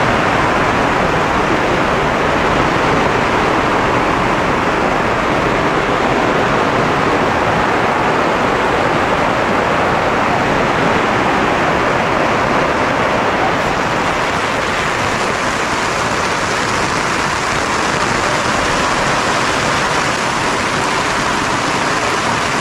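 Heavy rain falling steadily, a dense even hiss that turns brighter a little past halfway.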